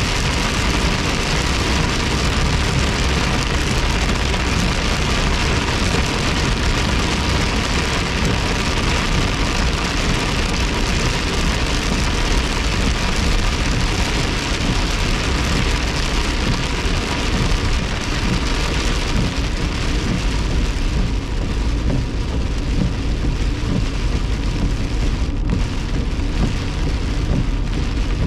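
Hard rain falling on a moving car's roof and windshield, heard from inside the cabin, mixed with the hiss of tyres on the wet road. It is a steady, loud wash of noise that thins a little in the last several seconds.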